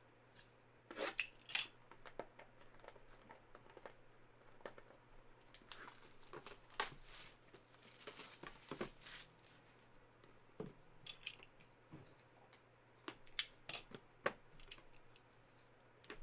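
Quiet handling of hard plastic graded-card slabs and their packaging: scattered light clicks and taps, with a stretch of rustling in the middle.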